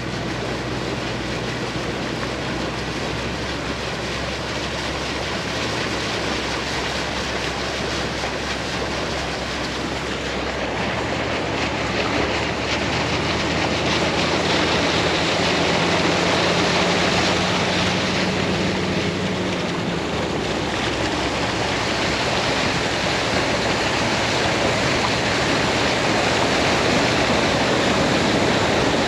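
Vehicle driving: a steady rush of road and wind noise with a low engine hum that changes pitch about halfway through and gets a little louder.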